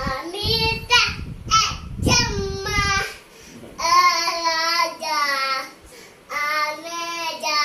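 A boy of about two singing in short sung phrases, with two brief pauses between lines.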